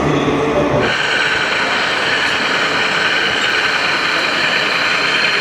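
Radio-controlled model truck running: a steady mechanical whir with several high tones held over a hiss. The sound changes abruptly about a second in from a lower, heavier run.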